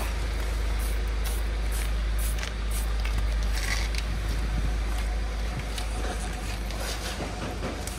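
A trigger spray bottle of wheel cleaner is squirted onto a car wheel in quick hissing spritzes, about three a second. The spritzes pause for a few seconds after the middle and come back near the end. A steady low rumble runs underneath.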